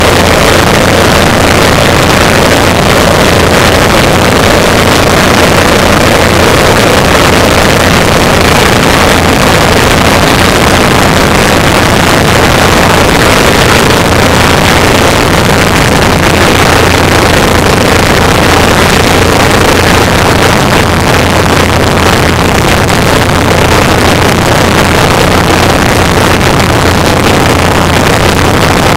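Two pulse jet engines running together, loud and steady without a break.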